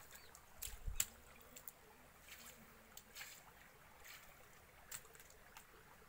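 Faint, irregular small splashes and pats of bare feet and hands in a shallow sheet of water running across a road, over a low trickle, with a dull thump about a second in.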